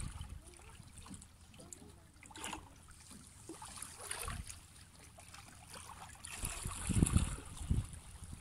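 Water lapping gently against a rocky shore, with gusts of wind rumbling on the microphone, strongest about seven seconds in.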